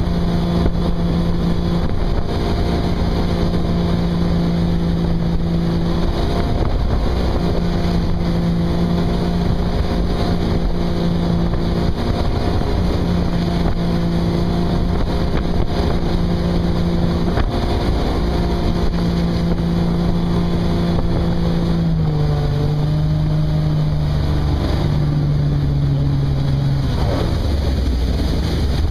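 Motorboat engine running at a steady speed while towing a water-skier, over a rush of wake water and wind. About two-thirds of the way in, the engine note drops in two steps as the boat slows, then fades near the end.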